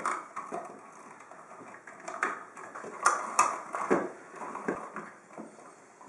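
Wires capped with plastic wire nuts and a plastic wall switch being pushed into an electrical wall box: scattered clicks and knocks with rustling, loudest about three seconds in.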